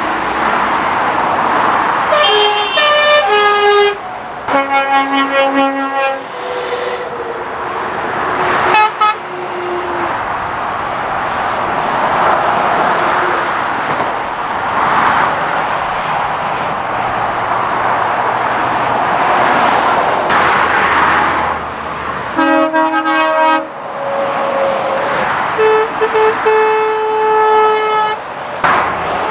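Lorries passing at speed on a main road, their tyres and engines making a rush that swells and fades with each vehicle. Lorry horns sound in several blasts, some long and some as quick repeated toots, the way drivers greet roadside spotters.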